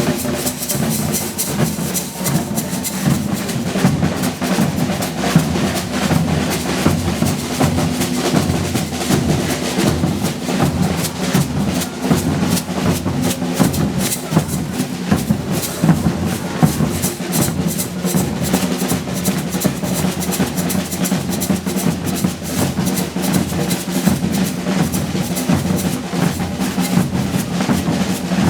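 Brazilian percussion band's drums playing a fast, driving rhythm, with dense, even strokes and no pauses.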